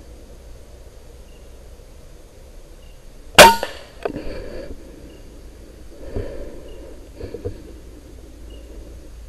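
Air rifle shot: one sharp crack about three and a half seconds in, followed by a few fainter knocks and rustles.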